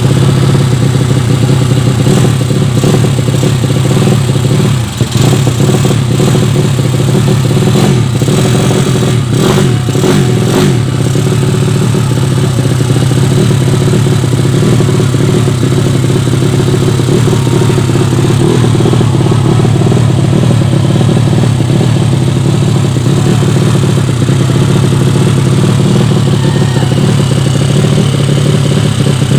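Yamaha Vega ZR single-cylinder four-stroke motorcycle engine, built up to 200cc with a Mio cylinder, running steadily with a brief dip about five seconds in. The carburettor is not yet set and the engine is running lean.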